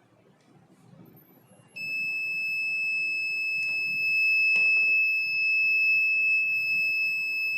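A 5-volt buzzer starts sounding a little under two seconds in: one steady, high-pitched continuous tone that cuts off abruptly at the end. It sounds because the heated starter bulb's metal strips have touched and closed the alarm circuit.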